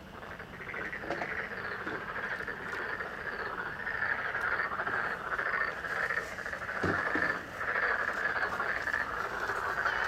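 A chorus of frogs croaking from a pond, a dense, continuous pulsing chatter that swells up over the first second and keeps going.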